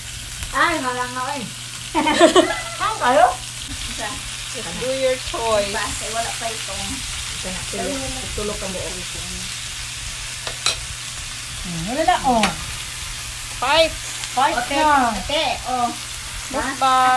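Pork belly, shrimp and squid sizzling on a round grill pan over a portable gas burner, a steady frying hiss. People's voices talk and exclaim over it at intervals, louder than the sizzle.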